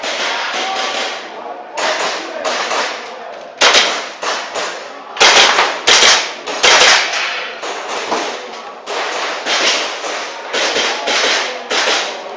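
Airsoft pistol firing in quick, irregular strings of sharp shots during a timed action-shooting stage, loudest in a rapid cluster a little past the middle.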